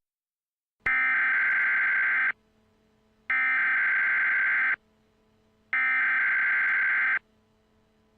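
Emergency Alert System SAME header: three identical bursts of digital data tones, each about a second and a half long and a second apart, marking the start of a new emergency alert broadcast.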